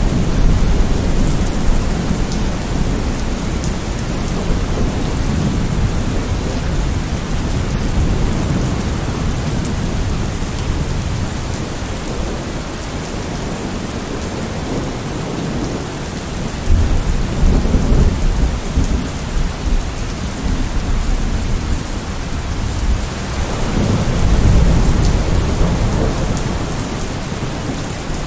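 Heavy, steady rain falling on a surface, with thunder rumbling low underneath and swelling up three times: at the start, about 17 seconds in, and again near the end.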